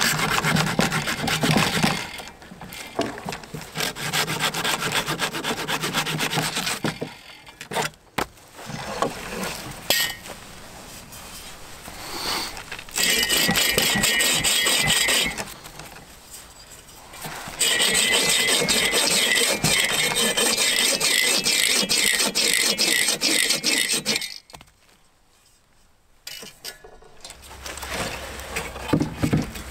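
Hand saws cutting through a dead branch: steady rasping back-and-forth strokes from a small folding saw, then from a Sven folding bow saw, then from an Agawa Canyon bow saw. The sawing comes in several runs of a few seconds each, with short breaks between them and one near-silent pause near the end.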